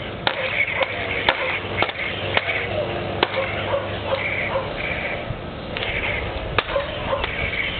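Plastic toy lightsabers clacking together in a mock duel: about ten sharp, irregular hits, with a lull in the middle.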